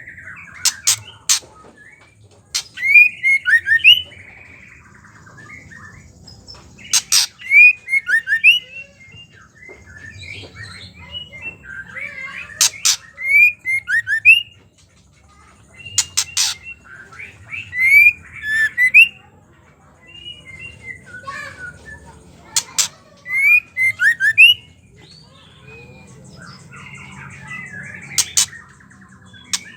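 Female white-rumped shama giving its chattering 'ketrek' call: short bursts of sharp clicks and squeaky notes that come again every few seconds.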